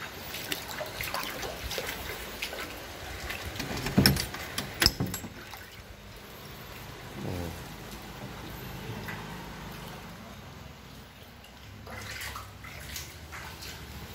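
Water trickling and dripping, with a cluster of loud knocks about four to five seconds in.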